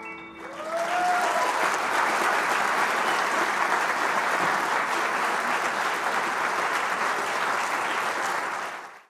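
An audience applauding. The applause builds within about a second as the piano's final chord dies away, holds steady, and then cuts off suddenly at the end.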